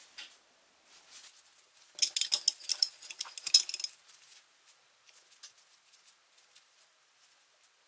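Small metal parts and tools being handled, clicking and clinking: scattered light ticks, then a burst of rapid, bright clattering with some ringing from about two to four seconds in, thinning back to occasional ticks.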